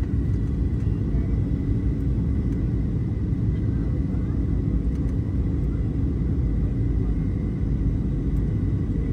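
Steady airliner cabin noise on final approach: a low engine and airflow rumble with a faint, steady high whine over it.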